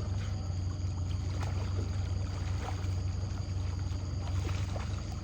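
Boat motor idling with a steady low hum, with a few faint, brief sounds above it.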